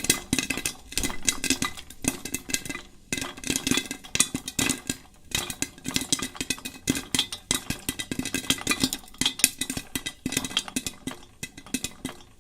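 Popcorn kernels popping rapidly, a dense crackle of many sharp pops a second, over a faint steady low hum.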